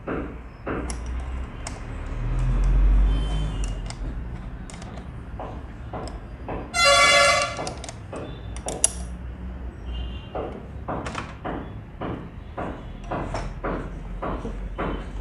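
Metal clicks and knocks of parts being fitted by hand to an old sewing machine head. A vehicle horn honks once briefly about seven seconds in, and a low vehicle rumble swells and fades a couple of seconds in.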